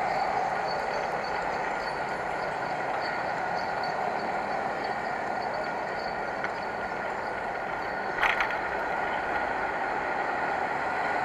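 Motorcycle running along the road, heard through an action camera as a steady wash of engine and road noise, with one short sharp knock about eight seconds in.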